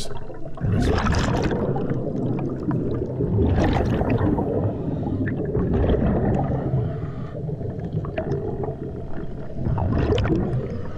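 Underwater bubbling and gurgling of divers' exhaled air venting from their hookah regulators, a steady low rumble with louder bursts of bubbles about a second in, around four seconds in, and near the end.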